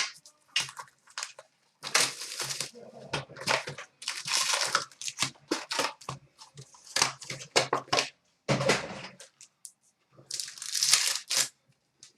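Hockey card box and pack wrappers being torn open and crinkled by hand: irregular rustling and tearing in short bursts with brief pauses.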